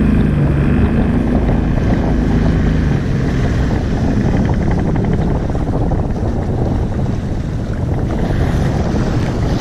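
Sea-Doo Spark jet ski engine running steadily under way, with wind rushing over the microphone and water rushing past the hull. The engine's low hum is clearest in the first few seconds, then sinks into the wind noise.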